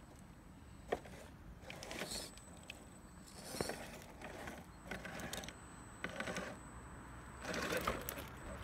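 Scattered clicks, taps and rattles of small hard parts being handled, with one sharp click about a second in.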